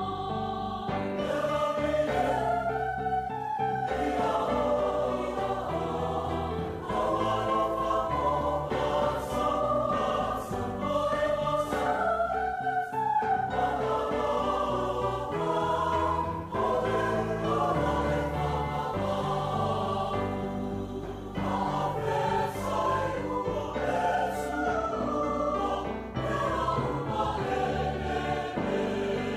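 Mixed Samoan church choir singing a gospel hymn in Samoan, many voices together in parts.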